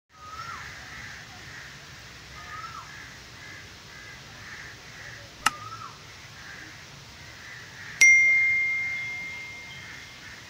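Subscribe-button sound effect: a sharp mouse click about halfway through, then a single bright bell ding that rings on one clear tone and fades away over a couple of seconds.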